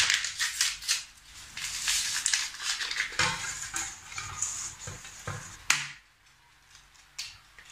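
Hands crumbling yeast into flour and rubbing through dry flour in a stainless-steel mixing bowl: dry rustling and crunching, with a few sharp knocks against the bowl a little past halfway.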